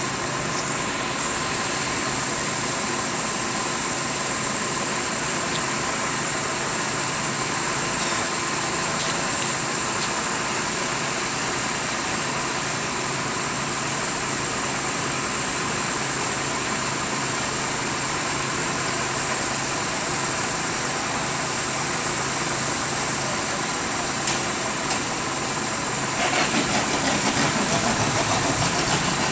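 An engine running steadily, with a constant high whine over it. About 26 s in it grows louder, with a rapid pulsing.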